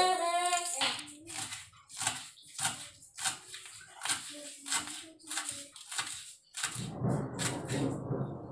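Kitchen knife chopping spring onion on a wooden cutting board: separate sharp knocks, roughly two a second. Near the end a steady rushing noise comes in underneath.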